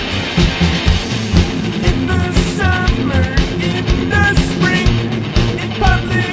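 Rock music with a steady drum beat and guitar; a pitched melody line comes in about two seconds in.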